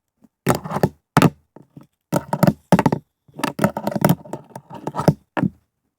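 Wooden fingerboard knocking and clacking against a hard surface in an irregular series of sharp taps, as it is handled and tried out just after being assembled.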